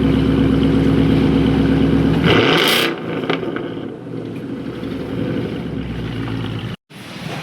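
Car engine running loud and steady, then a brief rush of noise about two and a half seconds in as its pitch drops and it falls quieter. The sound cuts out for a moment near the end.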